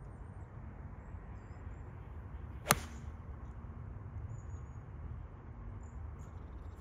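A golf iron striking a ball off a practice mat: a single sharp crack about three seconds in, over a steady low background rumble.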